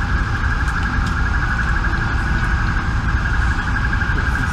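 An electronic alarm sounds continuously at one steady pitch with a fast, rapid pulse, over a low rumble of city street noise.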